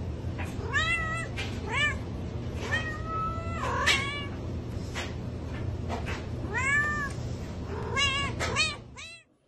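Cat meowing repeatedly, a series of short meows that each rise and fall in pitch, with one longer, drawn-out meow about three seconds in.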